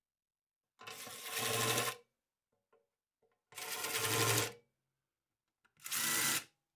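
Cordless drill boring through 1/8 inch aluminium plate with a twist bit, in three short runs of about a second each with silence between them.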